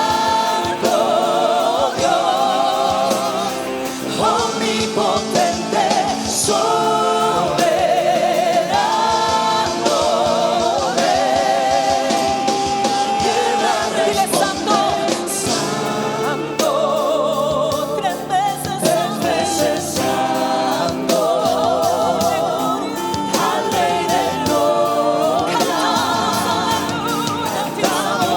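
Worship band music: voices singing a sustained, vibrato-laden melody with choir-like backing over a band with a steady beat.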